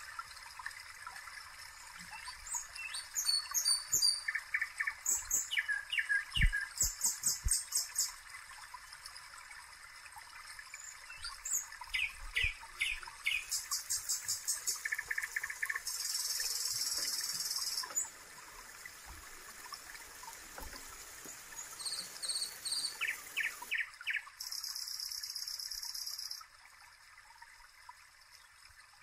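Birds chirping and trilling in short phrases over a steady rush of trickling water. The water sound cuts out suddenly near the end.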